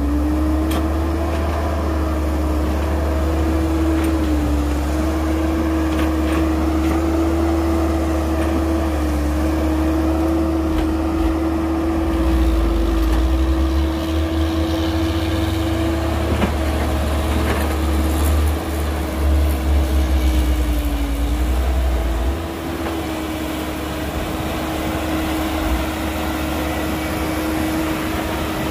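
Heavy diesel engine of construction machinery running steadily at high revs, its pitch sagging briefly a few times as it takes load, over a deep rumble that eases about three-quarters of the way through.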